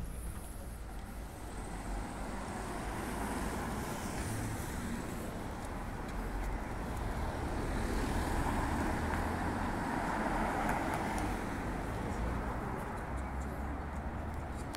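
Road traffic noise: a vehicle passing along the street, swelling slowly to its loudest about two-thirds of the way through and then fading.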